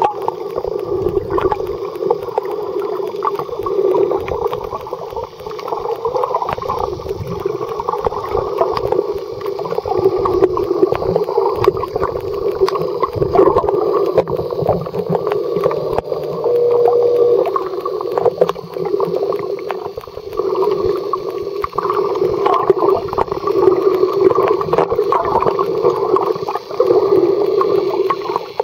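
Muffled underwater sound from a submerged camera: a steady low drone with gurgling and frequent crackling as water moves around the microphone, and a brief steady tone about halfway through.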